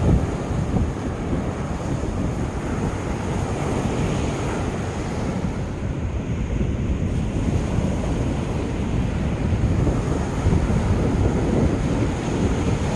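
Sea waves breaking and washing up a sandy beach, with wind buffeting the microphone.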